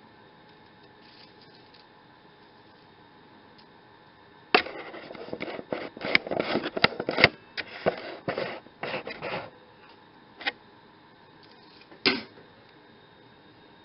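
Handling clicks and knocks: a quiet stretch, then a flurry of sharp clicks and knocks about four to nine seconds in, followed by a single click and a single knock.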